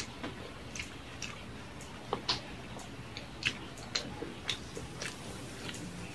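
Close-miked chewing of a mouthful of rice and fried food, with wet mouth clicks and lip smacks, several sharp ones from about two seconds in, over a steady hiss of rain.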